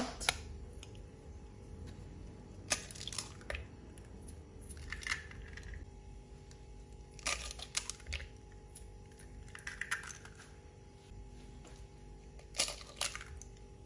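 Three eggs cracked open one after another into a plastic mixing bowl: short clusters of sharp cracks and shell crunching a few seconds apart.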